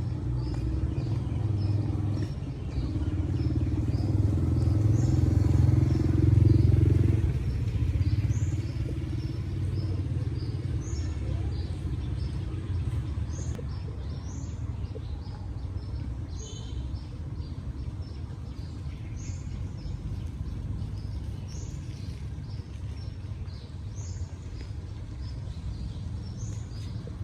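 A low motor-vehicle engine rumble that grows louder over the first seven seconds or so, then fades to a steadier, quieter hum, with small birds chirping repeatedly over it.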